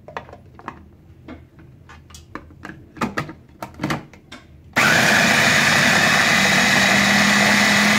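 Plastic clicks and knocks as the lid and motor unit of an Intertronic electric mini chopper are fitted onto its bowl, then, about five seconds in, the chopper's motor starts and runs steadily, its blade mincing cooked beef.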